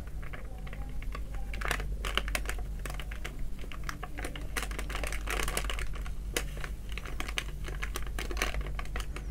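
A metal spoon scooping powdered milk out of a cardboard box: quiet scraping and rustling with many small irregular clicks.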